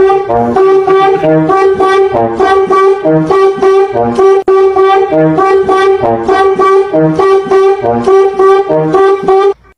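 Background music: a repeating melody over a steady beat, cutting off abruptly near the end.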